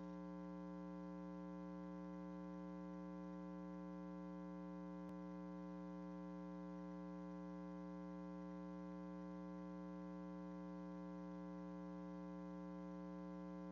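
Steady electrical mains hum, a low buzz that holds unchanged, with one faint click about five seconds in.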